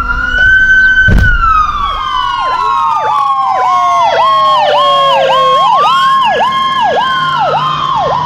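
Ambulance sirens: a wail rises and holds. After a sudden click it gives way to a slow falling wail sounding together with a fast pulsing tone about twice a second, and the wail climbs again and falls away near the end.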